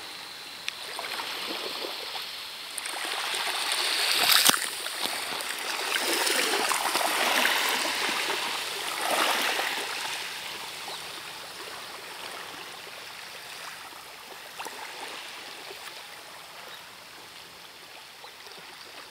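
Small sea waves washing onto a pebble beach, swelling and falling back a few times in the first half, the loudest about four seconds in, then quieter.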